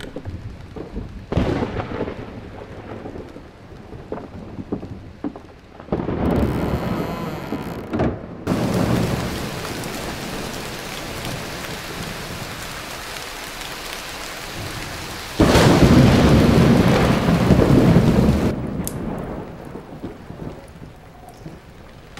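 A thunderstorm: steady heavy rain with thunder rumbling about a second and about six seconds in. The loudest thunderclap comes about fifteen seconds in and rolls for about three seconds before cutting off suddenly.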